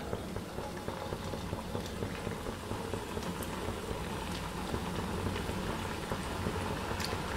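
Rava dough rolls deep-frying in hot oil in a kadai, the oil sizzling steadily with small crackles. It grows a little louder toward the end as more pieces go in.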